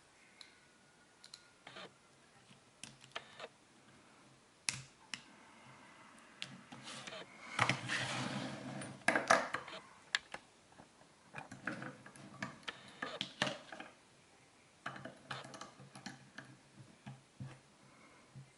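Irregular small metallic clicks and scrapes of hand tools and pliers working on a Sargent lock core as it is taken apart. A denser stretch of scraping and rattling comes about eight seconds in, with further clusters of clicks later.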